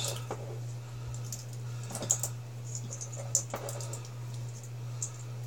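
Scattered small metallic clicks and clinks as 18650 lithium-ion cells and their spot-welded nickel tabs are handled and cut apart with cutters, over a steady low hum.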